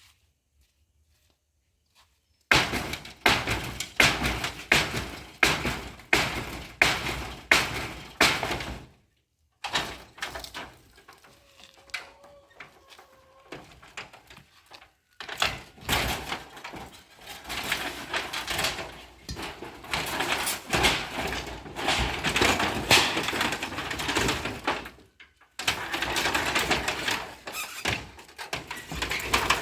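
Repeated heavy blows of hand tools knocking apart an outdoor pit latrine. They come at about two a second, starting a couple of seconds in, ease off into softer knocks in the middle, then return in a denser run of knocking and breaking.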